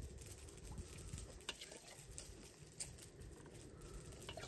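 Faint small water sounds at a shallow spring pool, with a few light scattered clicks and drips as a drinking glass is handled in the water.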